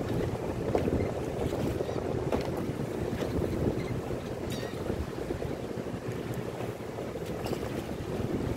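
Steady low rumbling wind noise on the microphone, with a few faint scattered clicks.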